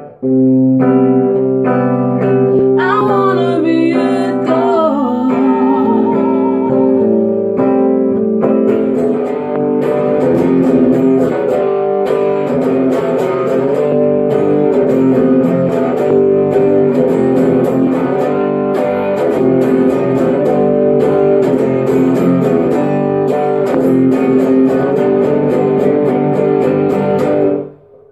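Flying V-style electric guitar played without a backing band. Held chords, with a few wavering notes about three to five seconds in, give way to fast, steady strumming from about nine seconds in, which stops abruptly near the end.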